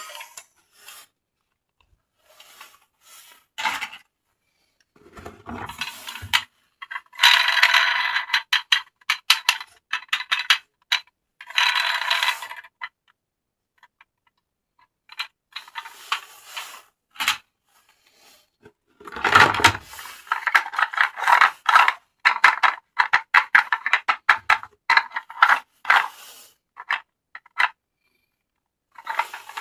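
Hard plastic toy parts being handled, clicked and rattled. The clicking comes in dense runs separated by short pauses.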